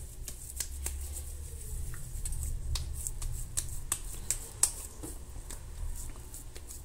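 Hands shaping raw ground beef into a burger patty: a run of irregular soft, wet slaps and clicks as the meat is pressed and patted between the palms, over a low steady hum.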